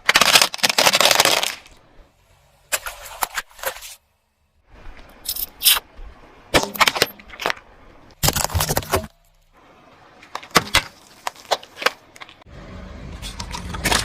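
A run of short clips of objects being crushed under a car tyre: loud crunches and sharp cracks, each clip cut off abruptly. Near the end a low rumble of the car rolling builds under the crackling.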